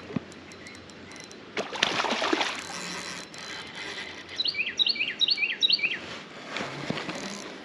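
Pflueger President 30 spinning reel being cranked as line is retrieved, its gears running. About halfway through, a small bird chirps a quick series of short calls.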